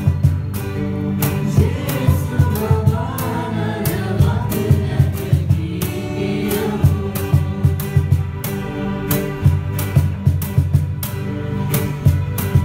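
Christmas carol sung by a group of voices over a band with a steady drum beat. The singing drops out a little past halfway, leaving the instruments playing on.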